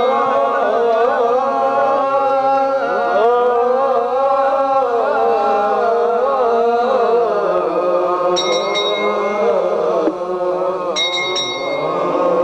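Voices chanting together in a slow, wavering melody, Orthodox Tewahdo liturgical chant. Short bright metallic jingles sound twice in the second half.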